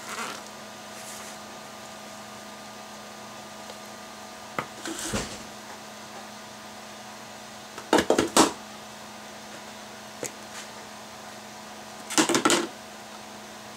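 A spatula scraping royal frosting out of a stand-mixer bowl and knocking against the bowls it is scooped into, with loud clusters of quick taps about eight seconds in and near the end, over a steady hum.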